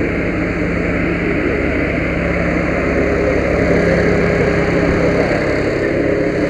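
Fire engine's diesel engine running steadily, a loud, even drone with a low hum.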